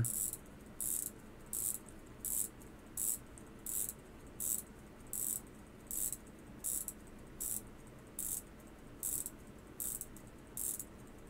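Hamilton Lancaster 17-jewel pocket watch movement being wound with a bench key: the ratchet wheel clicks past its click in short runs, one run roughly every three-quarters of a second, as the mainspring is wound up.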